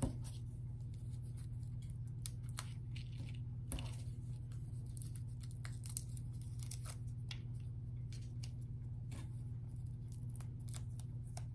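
Faint scattered clicks and short rustles of small sticky-backed craft tiles being peeled off their backing and pressed onto paper, over a steady low hum.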